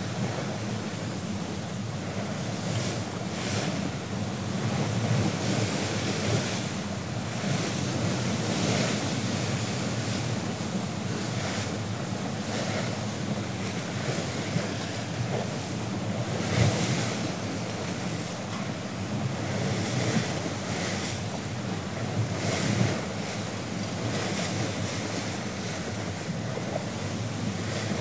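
Bow wave of a Thames sailing barge rushing along the hull under sail in a force 5 wind, splashing in repeated surges every second or two, with wind rushing and buffeting the microphone.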